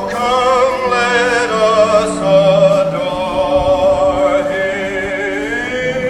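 Music with singing voices holding long notes with vibrato.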